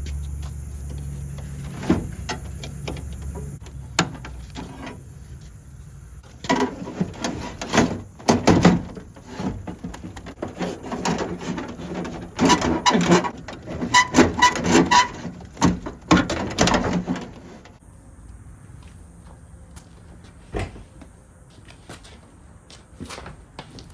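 Hands working on a pickup truck's door while taking it apart: a run of clicks, knocks, scrapes and short squeaks of parts being pried and shifted, busiest from about six to seventeen seconds in. A steady low hum sounds in the first few seconds and then stops.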